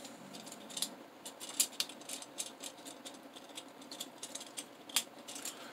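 Faint, irregular plastic clicks and rattles from a Transformers Spark Armor Ratchet action figure being transformed by hand, its parts snapping and swivelling into place. A sharper click comes about a second and a half in and another near the end.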